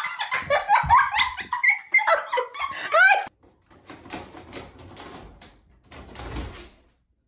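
Squealing, rising whines from an animal, tagged as a dog. After a cut, a run of faint rapid scratching and clicking at a closed interior door as a dog works at it from the other side.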